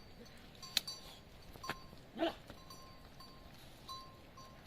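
A goat bleats once, briefly, about two seconds in, over faint short ringing tones and a sharp click just before the first second.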